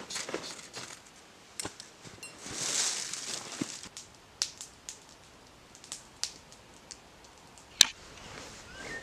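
Wood campfire crackling, with scattered sharp pops and snaps, the loudest near the end, and a brief hiss about three seconds in.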